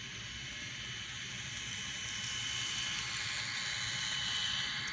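N scale model train running on sectional track: a steady small-motor whir with a thin high whine, growing louder as the train approaches and dropping off near the end as it passes.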